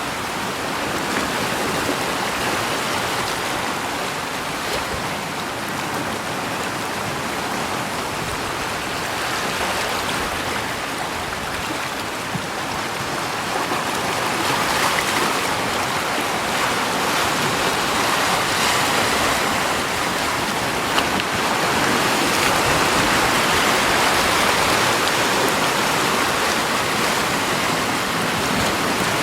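Steady rushing of moving water, an even wash of noise with no distinct splashes, growing a little louder about halfway through.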